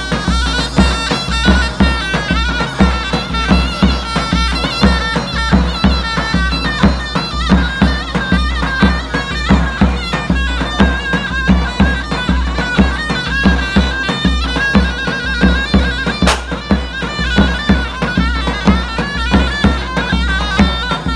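Davul and zurna playing folk dance music: the shrill, wavering melody of the zurna over a steady beat of the big double-headed davul drum.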